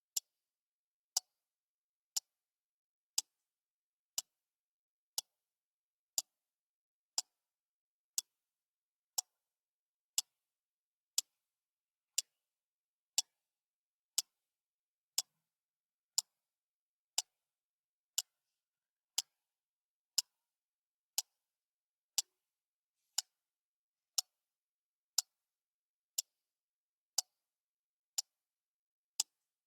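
Clock ticking once a second: short, sharp, evenly spaced clicks with silence between them.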